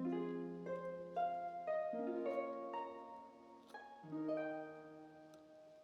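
Background music: a slow melody of gently plucked, harp-like notes over a lower note that changes about every two seconds.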